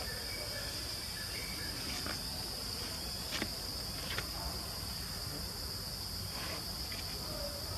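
Steady high-pitched insect chorus, with a few faint clicks about halfway through.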